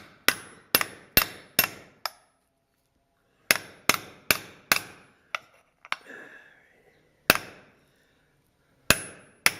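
Hammer tapping a new 6203 ball bearing into the bore of an idler pulley: sharp metal strikes with a short ring. A run of five taps about two a second, a pause, four more, then a few spaced taps.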